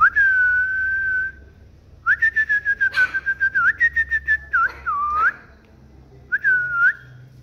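A person whistling: a held note lasting about a second, then a fast warbling trill of short repeated notes, and one more short note near the end.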